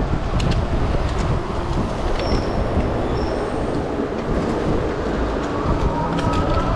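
Wind buffeting the microphone and tyre and road rumble from an electric two-wheeler rolling along pavement, with scattered small rattles. A faint whine rises slightly in pitch near the end.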